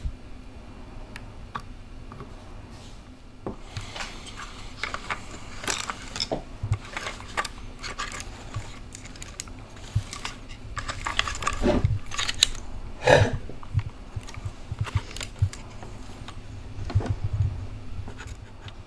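Irregular scratching and scraping with small clicks and taps, from hand work on a drone's arm and wiring with a soldering iron and small tools, with a few louder knocks about twelve and thirteen seconds in.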